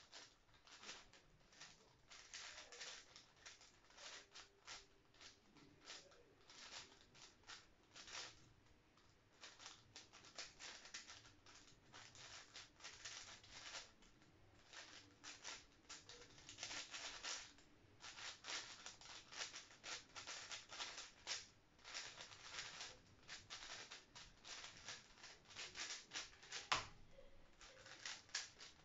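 A 5x5 speed cube being turned fast: rapid plastic clicking and clacking of the layers in irregular flurries. Near the end comes one sharp tap, a hand hitting the laptop keyboard to stop the timer as the solve finishes.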